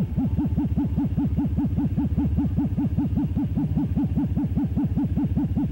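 Electronic warbling tone, a synthesized sci-fi machine sound effect: a fast, steady train of short pitch sweeps, each rising and falling, about five a second.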